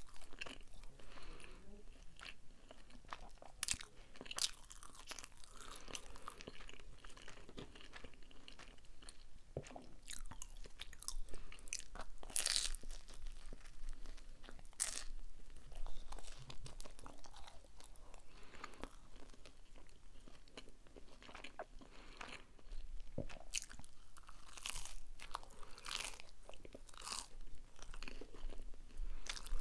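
Close-miked chewing of cheesy pizza: irregular crunchy bites and wet mouth clicks picked up by a lavalier microphone held right at the mouth, the loudest crunch about halfway through.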